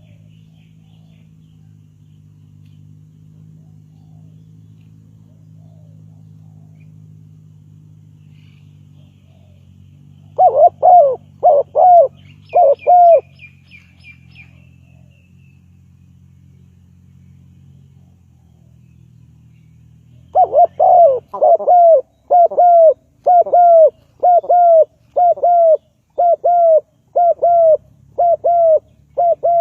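Spotted dove cooing: a short series of four coos about a third of the way in, then a long run of about fourteen evenly spaced coos in the last third. Faint high chirps of a small bird come in briefly during the first series, over a low steady hum that stops partway through.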